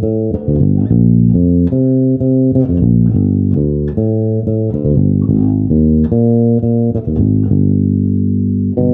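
Electric bass guitar, a Fender Precision Bass, played unaccompanied: a line of plucked notes, each held about half a second to a second, with a longer sustained note near the end.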